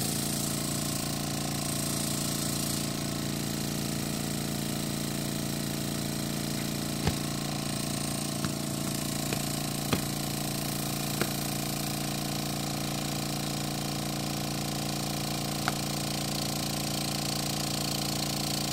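Small electric air pump running steadily with a hum while it inflates a plastic-film envelope. About half a dozen sharp crackles in the middle stretch, as the film pulls taut.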